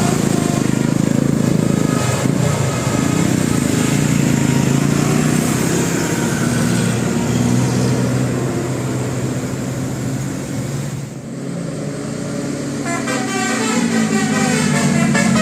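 Bus telolet horn: the bus's set of musical horns sounds a string of held notes that step between pitches. About thirteen seconds in it breaks into a quicker run of notes.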